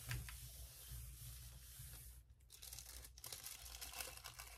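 Hands rubbing a sheet of paper pressed onto a gel printing plate, making a faint papery rustling and scraping to transfer the print and its leaf impressions. The scratching is denser in the second half.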